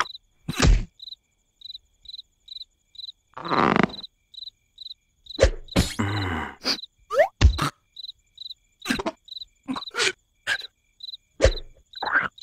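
Steady cricket chirping, a high chirp about three times a second, as night ambience. Over it come scattered cartoon sound effects: soft thuds and squelches, a couple of longer rustling bursts and short sliding vocal noises from the larva characters.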